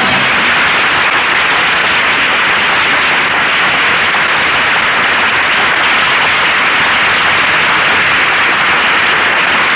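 Dense, steady applause from a studio audience, heard on an old radio transcription recording.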